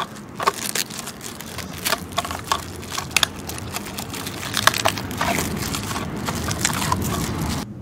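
Clear plastic protective film crinkling and crackling as it is peeled off an RC monster truck's painted body shell, many small sharp crackles one after another.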